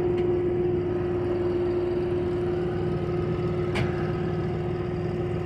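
Tractor engine idling steadily with a constant hum. A single short click comes a little under four seconds in.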